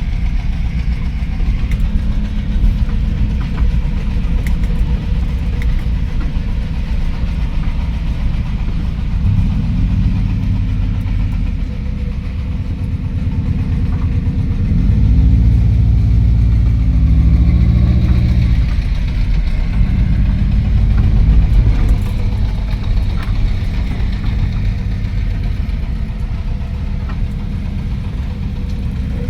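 Motor vehicle engine running while driving, with the revs rising and falling through gear changes in the middle and loudest about halfway through.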